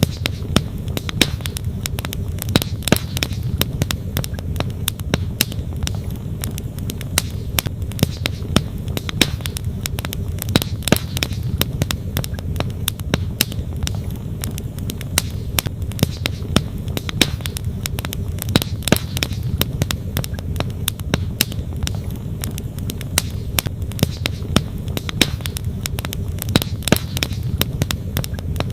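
Wood campfire crackling, with irregular sharp pops, over the steady rush of a flowing creek.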